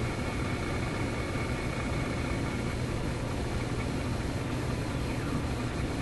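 Steady static hiss with a low hum from a vacuum-tube AM radio's speaker as it is tuned across the band during alignment, with a faint thin whistle in the first two seconds or so.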